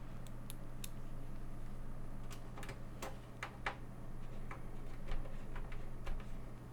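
Scattered light clicks and taps of a screwdriver, screws and case parts being handled as a Commodore 128 computer is screwed back together, a dozen or so irregular ticks, the densest about two to four seconds in.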